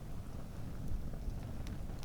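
Wood campfire burning: a low, steady rumble with a couple of sharp crackles from the burning wood.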